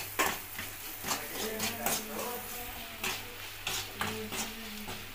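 Metal spatula scraping and knocking against a steel kadai as a curry is stirred, in irregular strokes.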